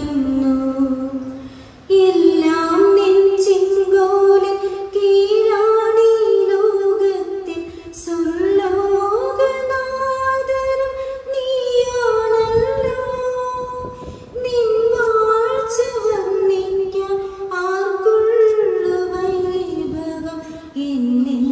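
A woman singing a prayer song, a single melody line with long held notes.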